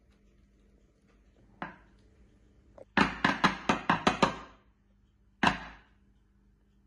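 Glass baking dish full of batter knocked down on a marble countertop: one light knock, then a quick run of about eight sharp knocks and one last knock, to settle and level the batter.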